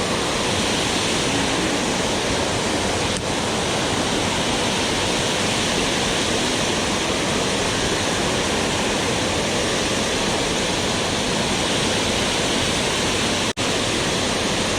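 Steady roar of a waterfall's rushing water, even and unbroken, with a brief dropout near the end.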